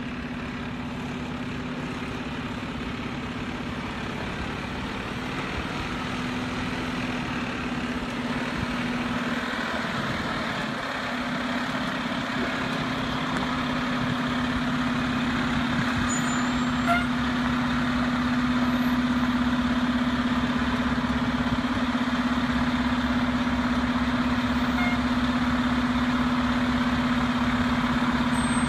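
Diesel engine of a tractor-drawn aerial ladder fire truck running at low speed as the truck creeps through a tight turn, a steady hum that grows gradually louder as it comes closer.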